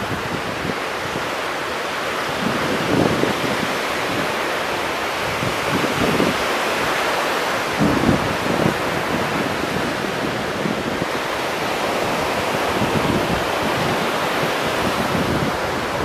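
Small ocean waves breaking and washing up a beach: a steady surf hiss that swells and eases, with wind buffeting the microphone in a few low thumps.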